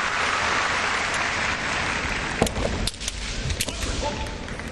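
Audience applause filling a large hall, dying down about halfway through, with a quick run of four or five sharp cracks of bamboo shinai striking as the two fencers close in.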